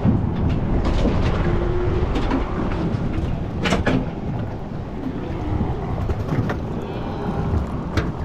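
Wind buffeting the microphone over the steady noise of a boat on open water, with a few sharp knocks, the loudest about four seconds in.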